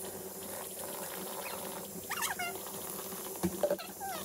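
Tap water running steadily into a sink, a constant hiss, with a few sharp clicks near the end and faint voice-like sounds about two seconds in.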